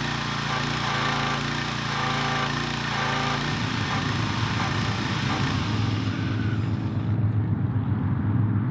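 Gas-engine Briggs & Stratton pressure washer running with its pump making full pressure on freshly replaced check valves, a hiss of water spraying from the wand over the engine. The engine's note changes about a third of the way in, and the spray hiss fades out near the end while the engine keeps running.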